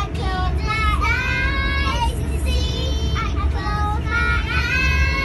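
Young girls singing a song in high child voices, in phrases with short breaks, over the steady low rumble of the moving train.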